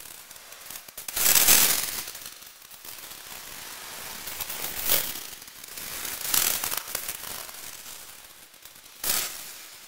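Electroacoustic tape music: swells of dense crackling noise with no steady pitch. The loudest swell comes about a second in, further ones around the middle, and a sudden sharp burst near the end.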